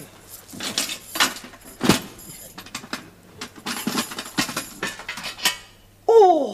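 A small metal cash box being handled and opened: a series of separate clicks, clinks and knocks of its lid, latch and key. Near the end, a short loud cry falling in pitch.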